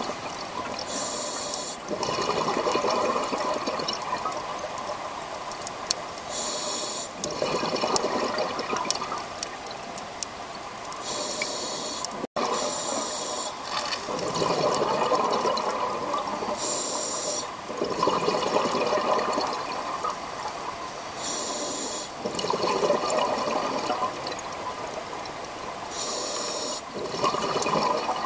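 Scuba diver breathing through a regulator underwater: a short hiss on each inhale, then a longer rush of exhaled bubbles. The cycle repeats steadily, about one breath every five seconds, six breaths in all.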